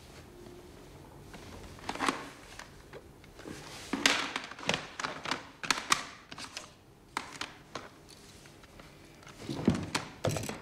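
Handling noises: scattered knocks, taps and clicks of small hard objects, such as CD cases and equipment, being picked up and set down on a wooden floor, most frequent about halfway through and again near the end.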